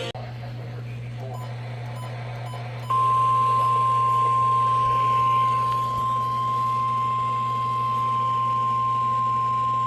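NOAA Weather Radio warning alarm tone: a single steady 1050 Hz tone that switches on abruptly about three seconds in and holds, signalling that a warning broadcast follows. A steady low hum runs under it.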